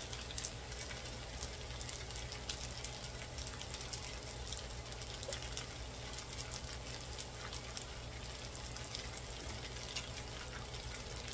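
Fried rice sizzling in a hot electric skillet: a steady hiss with many small scattered crackles, over a low steady hum.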